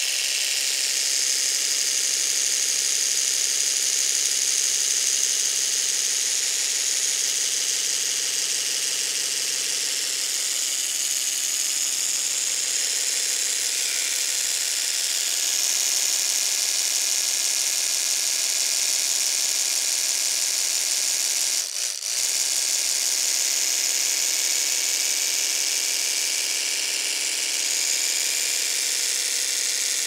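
Electric toothbrush running with a steady high-pitched buzz, faltering once for an instant about two-thirds of the way through.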